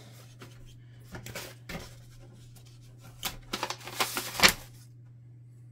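Hands working a plastic packing piece out of a new HP LaserJet printer: scattered scrapes, rustles and clicks of plastic, with a few sharp clacks between about three and four and a half seconds in, the loudest of them.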